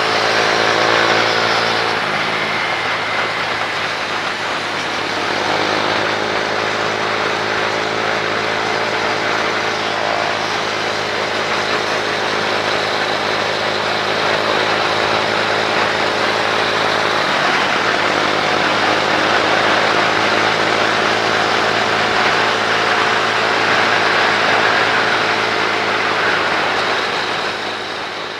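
Motorcycle engine running steadily on the move, its pitch shifting about two seconds in and again around seventeen seconds.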